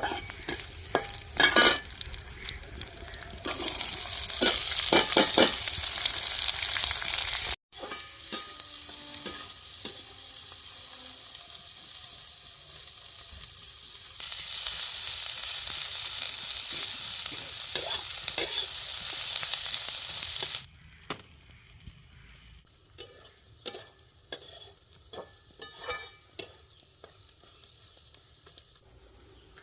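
Food frying and sizzling in a pan as it is stirred, with clinks and scrapes of a utensil against the pan. The sizzle is loudest in two stretches. In the last third it falls away to a faint background with scattered clinks.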